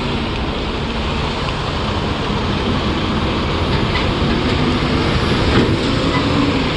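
Semi-truck tractor's air-ride suspension airbags being raised: a steady rush of air filling the bags, with a low rumble underneath.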